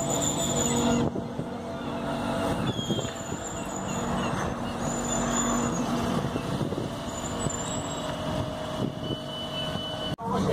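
A Tyne and Wear Metro train standing at a platform, its equipment humming steadily, with faint high whines coming and going.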